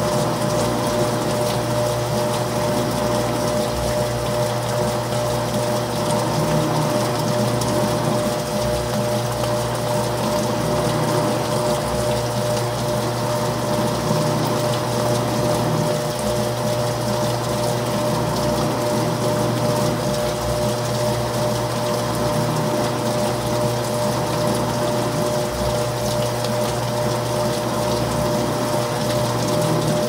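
GE GTW465ASN1WW top-load washing machine running with its basket turning: a steady motor hum with a few constant tones over a continuous rush of water.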